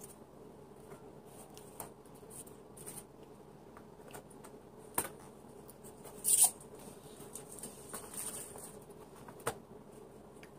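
Clear acrylic hamster-cage panels being handled and fitted together: scattered light clicks and taps of hard plastic, with a louder brief scrape about six seconds in.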